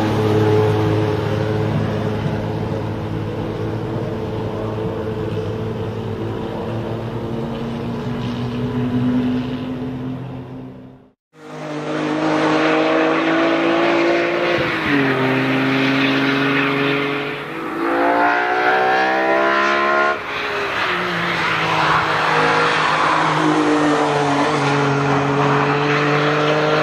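BMW E9 3.0 CSL race car's straight-six running at steady revs as it moves off, until the sound cuts out suddenly about eleven seconds in. After a moment's silence another race car's engine runs, its revs rising and dropping several times with gear changes.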